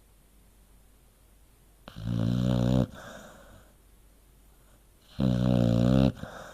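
An American Staffordshire terrier snoring in its sleep: two loud snores about three seconds apart, each lasting about a second, each followed by a softer breath.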